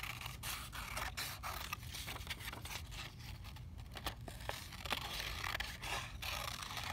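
Scissors snipping through a sheet of green paper, cutting out a shape in a run of short, irregular cuts, with the paper rustling as it is turned.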